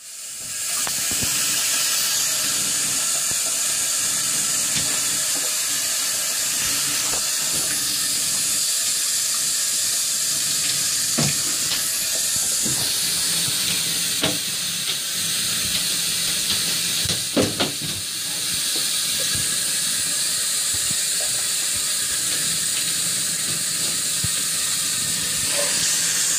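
Bathtub faucet running steadily into the tub, a constant hiss of water. A golden retriever's paws splash and dig in the water, with a few sharp knocks against the tub around the middle.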